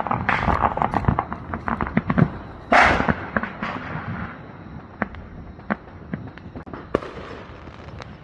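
New Year's fireworks and firecrackers going off in a dense crackling run of bangs, with one loud burst about three seconds in, then thinning to scattered single bangs.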